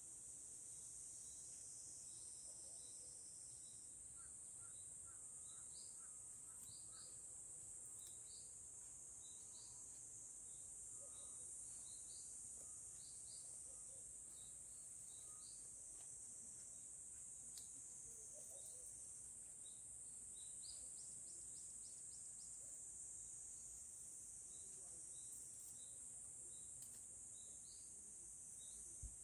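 Faint outdoor summer ambience: a steady high-pitched insect drone, with a bird's short high chirps repeating over it.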